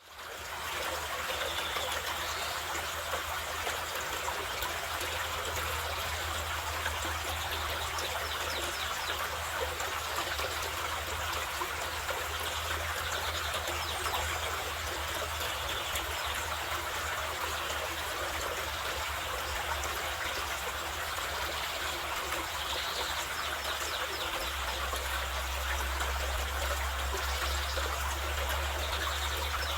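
Carpathian mountain river rushing and splashing over stones in a steady wash of water noise, fading in at the start.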